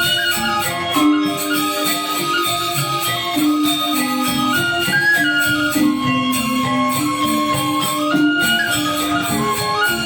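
Balinese gamelan angklung ensemble playing, with four-tone reyong gong-chimes: a dense, ringing interlocking texture whose melody steps among a few pitches.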